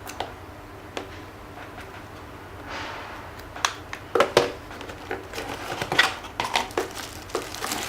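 A cardboard phone box being opened and its contents handled: scattered light taps and knocks, with a short sliding rustle about three seconds in.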